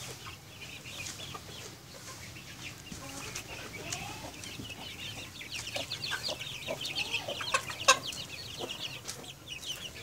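A flock of chickens clucking, with a steady stream of short high-pitched chirps that grows busier in the second half. There is one sharp click about eight seconds in.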